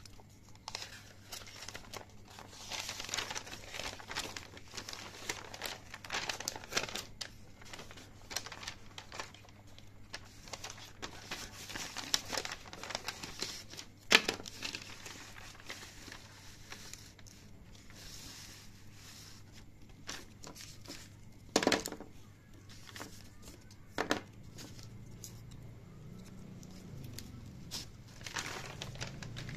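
A printed paper or plastic game mat and its plastic wrapping being unfolded and handled, crinkling and rustling, with a few sharp knocks against the table, the loudest about halfway through.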